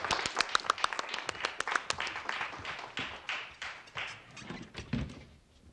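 A small group clapping, with dense irregular claps that thin out and die away about five seconds in.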